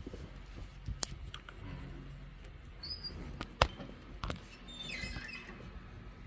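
Handling noises as the camera is moved: scattered clicks and knocks, the sharpest about three and a half seconds in, and a brief squeak about five seconds in.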